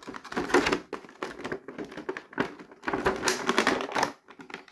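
Thin clear plastic blister tray of action-figure packaging crinkling and crackling as it is bent and handled, in irregular spells with many small clicks, loudest about half a second in and again from about two and a half to four seconds in.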